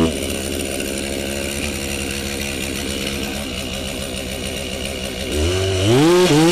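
Chainsaw cutting into a large tree trunk, running at a steady pitch for most of the time. Near the end it revs up sharply, with several quick rises and falls in engine pitch as the throttle is worked.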